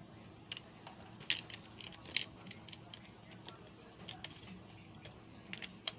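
Irregular small sharp clicks and taps of tools and parts being handled while repairing a disassembled laptop, over a faint steady hum.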